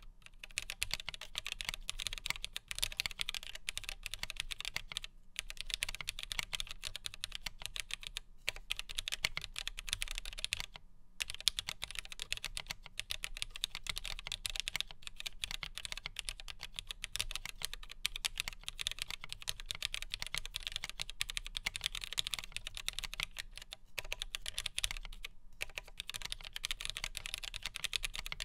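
Steady fast typing on a Geonworks W1-AT keyboard built plateless on a 1.2 mm PCB with vintage three-pin Cherry MX Black linear switches: a dense stream of key clacks with a few brief pauses. The builder finds the sound a bit thin, which he puts down to the 1.2 mm PCB.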